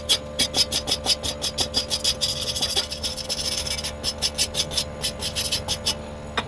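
Rapid, rhythmic scraping strokes of a hand tool on metal pipe, about six strokes a second, the kind made when scrubbing or filing a fresh weld. The strokes stop about six seconds in, and a single sharp click comes near the end.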